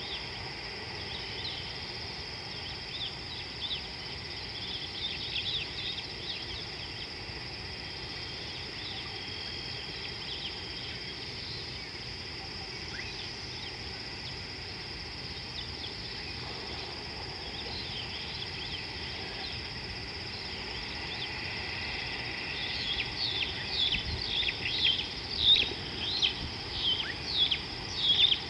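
Steady, high-pitched insect chorus, with birds calling in short, sharp chirps over it; the chirping grows busier and louder over the last six seconds.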